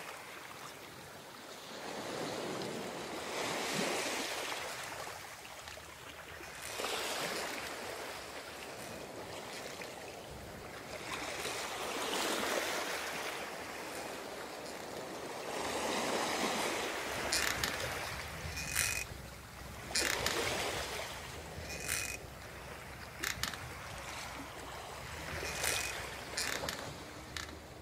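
Waves washing in, rising and falling in slow swells every few seconds. From about two-thirds of the way through, a series of sharp mechanical clicks is laid over the water.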